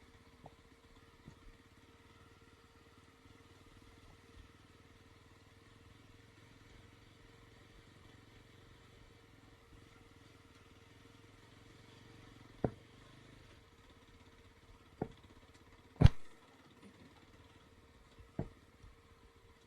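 Motorcycle running faint and steady at low speed, with four sharp knocks; the loudest comes about three-quarters through.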